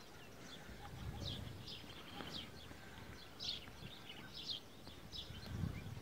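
Small birds chirping in the trees: short, high, slightly falling calls, about two a second.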